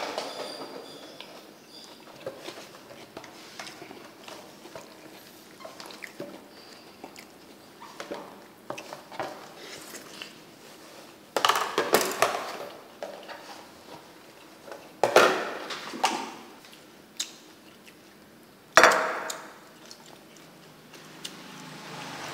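Dishes and spoons being handled at a table: soft clinks and taps, with three louder clatters in the second half.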